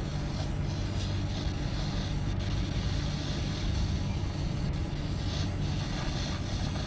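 Brazing torch flame running steadily as it heats a copper discharge-line joint on a scroll compressor to melt the braze and unsweat the pipe.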